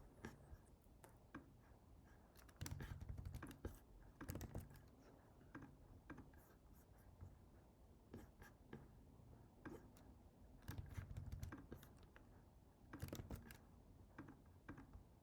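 Faint computer keyboard typing in short bursts of keystrokes, with pauses of a second or two between them.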